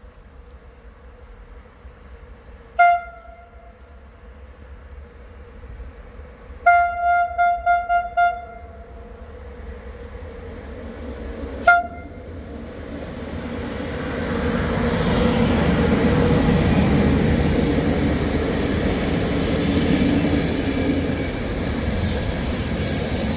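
Train horn giving short toots: one at about three seconds, a quick run of several around seven to eight seconds, and another near twelve seconds. Then a train's rumble builds up and stays loud as it passes close by, with sharp clicks near the end.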